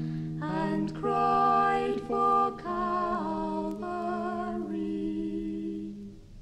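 Mixed voices singing long held notes in close harmony without clear words, the chord changing a few times. The singing fades a little and then stops suddenly near the end as the song finishes.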